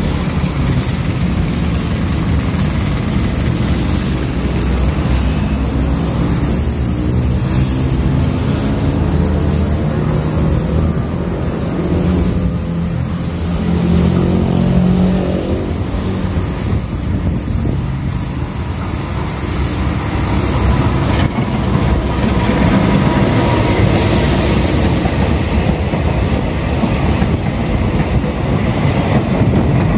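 Diesel-hauled express passenger train approaching and passing close by. The locomotive's engine rumbles, then the carriages' wheels clack over the rail joints near the end.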